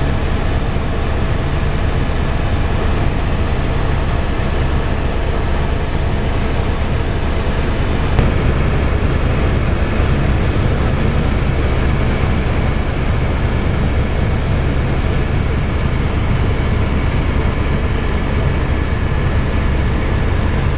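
Helicopter in flight, its engine and rotor noise running steadily and loud, with a few steady whining tones above the low drone. A brief click about eight seconds in.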